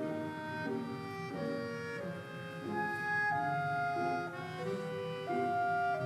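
Background instrumental music: a melody of held notes that change about every half second to a second, over a soft low accompaniment.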